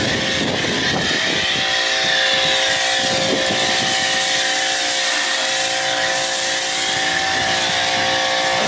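Pressure washer running steadily, its motor humming under the hiss of water and foam spraying from the foam cannon.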